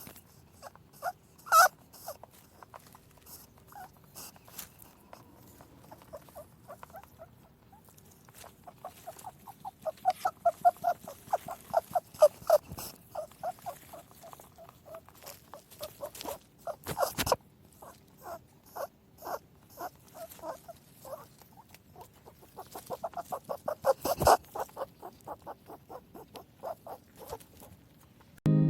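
A small animal making runs of short, high squeaks, several a second, broken by a few sharp knocks.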